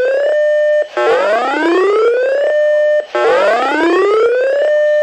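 Electronic siren alert tone whooping over and over: each tone glides up in pitch for about a second and a half, holds steady for about half a second, cuts off, and starts again, roughly every two seconds.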